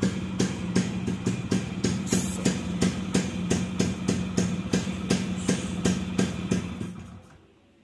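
Two-stroke motorcycle engine idling with a quick, even pulsing beat, about five pulses a second, over a steady low hum. It fades out near the end.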